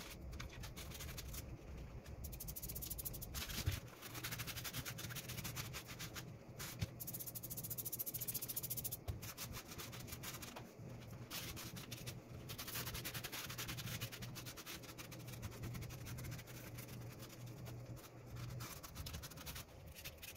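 A rag being scrubbed over rough split-stone ledger tile to work in a freshly sprayed sealer. The rubbing comes in stretches of strokes a few seconds long, with short pauses between them.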